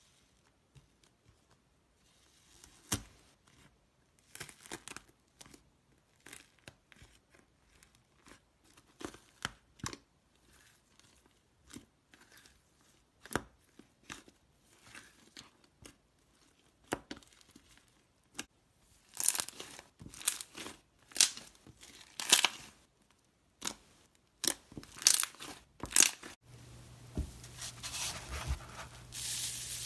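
Dried crust of iceberg slime crackling and crunching as fingers press on it and break through it: irregular crisp crackles that come thicker and louder after about twenty seconds. Near the end a steady low hum with a soft hiss takes over.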